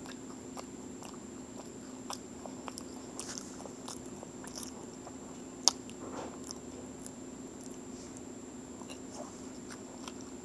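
Close-up chewing and small mouth and fork clicks while eating pancake, with one sharper click about halfway through. A steady low hum and a faint high whine run underneath.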